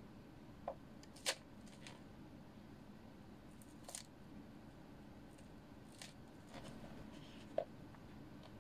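A small cake being crushed under a sock-clad foot on a wooden floor: a handful of short, sharp crunches and crackles, a few seconds apart, over a low steady room hum.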